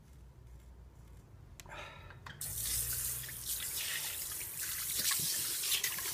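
A tap turned on about two and a half seconds in, then water running steadily from the tap into a sink.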